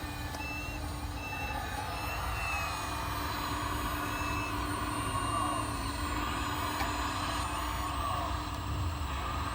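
A 1/14-scale RC hydraulic excavator's electric hydraulic pump running with a steady whine, a second higher tone wavering in pitch as the machine works.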